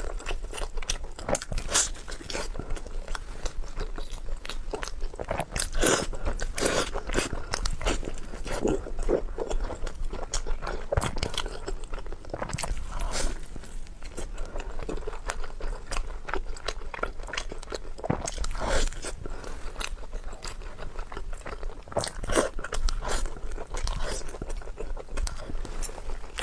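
A person eating close to the microphone, biting and chewing food, with many short, sharp, irregular clicks and smacks of the mouth.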